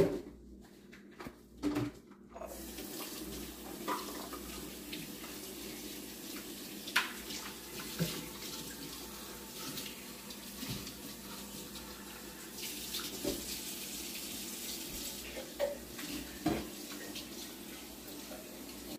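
Water running steadily from a kitchen tap, starting about two seconds in, with a few scattered knocks and clicks.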